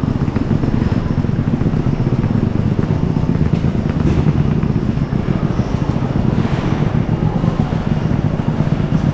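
Wheeled suitcases rolling over brick block paving, a steady rattling rumble of small wheels on the joints.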